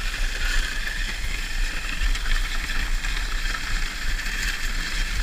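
Steady muffled rumble and scraping of a moving dog sled running over a snow trail, heard through a GoPro's waterproof case.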